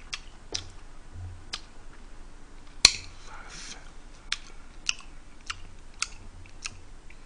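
A scattering of short, sharp clicks and small knocks, about a dozen at uneven intervals, the loudest about three seconds in.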